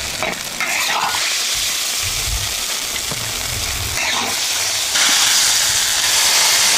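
Mushrooms and meat sizzling in a large wok while a metal spatula stirs and scrapes the pan, with a few brief scrapes. The sizzling grows louder about five seconds in.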